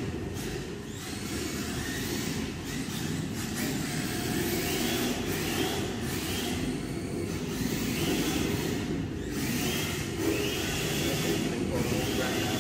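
Electric motors of several RC drift cars whining, one short rising whine after another as the cars throttle up, over a steady rumble of tyres on the track surface.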